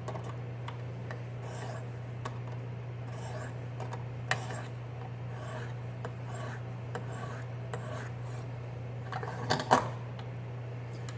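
A 300-grit diamond stone on a KME guided sharpener scraping along the edge of an AUS-8 steel knife blade in a series of short, raspy strokes, two of them louder about four seconds in and near the end. A steady low hum runs underneath.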